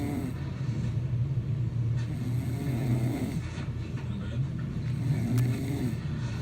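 A man snoring. The low rumbling snore is continuous, with a louder breath coming round about every two and a half to three seconds.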